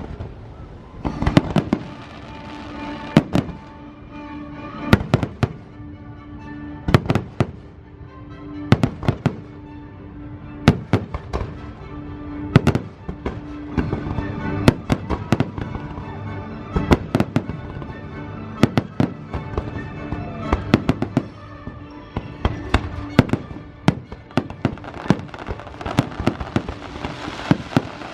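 Aerial fireworks shells bursting in a rapid series of sharp bangs and cracks, over orchestral show music played through loudspeakers. The bangs come about every second at first and grow denser toward the end.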